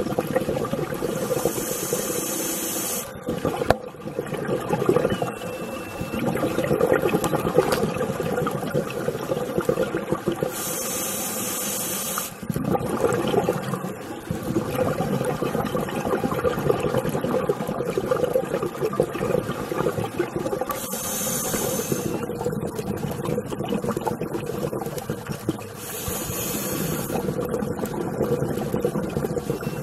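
A scuba diver breathing underwater through a regulator. There are four sharp bursts of high hiss as air is drawn in, and a continuous bubbling rumble of exhaled air between them.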